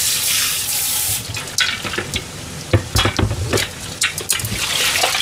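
Kitchen tap running into a stainless steel sink for about a second, then stainless steel bowls and a strainer knocking and clinking against each other and the sink as they are handled, with more splashing water near the end.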